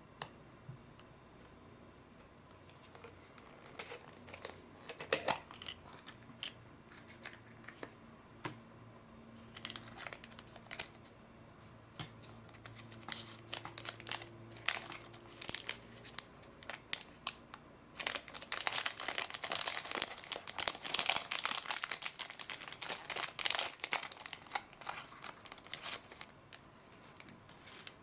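Small clear plastic jewellery bag and paper card being handled by hand: scattered rustles and light clicks at first, then dense crinkling of the plastic through most of the second half as the pearl earrings are worked out of the bag.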